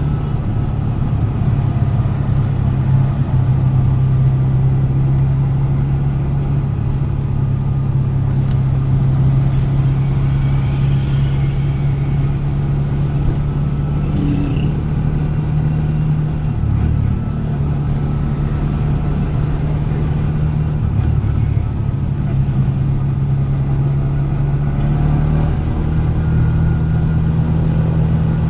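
Motor vehicle engine running steadily while moving, a low hum that shifts in pitch a few times with changes in speed.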